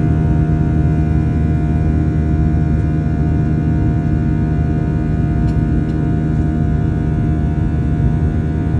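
Airliner cabin noise in flight: the steady drone of the engines and rushing air heard from inside the cabin, a low hum with several steady tones over an even rush of noise.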